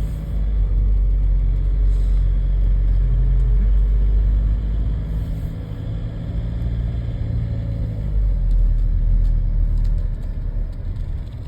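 Ford Galaxy 1.9 TDI diesel engine and road rumble heard from inside the car while driving; the engine note rises steadily, then drops about eight seconds in, and the sound eases off near the end.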